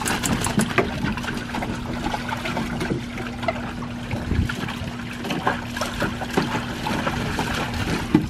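Water splashing and sloshing in a plastic kiddie pool as two Labrador retrievers wade and paw at a ball, with a garden hose trickling water into the pool. Many short, irregular splashes over a steady low hum.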